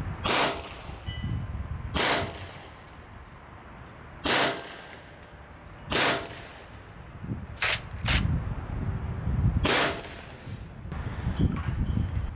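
A .22 Evanix Viper semi-automatic PCP air pistol fires seven single shots, about one every two seconds, with two in quick succession about eight seconds in, as pellets knock small targets off a board.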